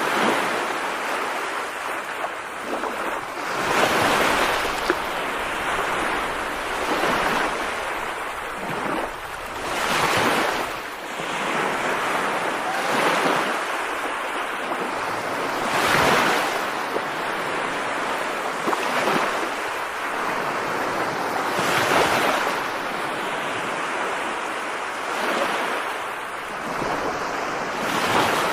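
Steady rushing water noise with wind, swelling and easing every few seconds.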